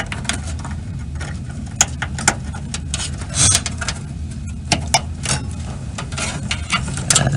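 Small plastic clicks, taps and rattles from front-panel connector wires being handled and pushed onto motherboard header pins, irregular and scattered over a steady low hum.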